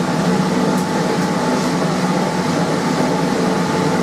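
Steady hum of an electric forge air blower, holding a constant pitch with several steady tones.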